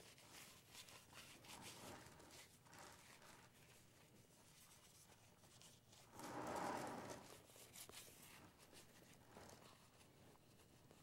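Faint rubbing and scratching of a damp paper towel wiped over the plastic body of a Nikon Eclipse E100 microscope, louder for about a second around six seconds in.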